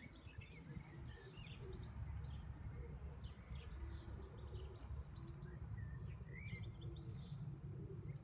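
Small wild birds chirping in short, scattered calls over a steady low rumble of outdoor background noise.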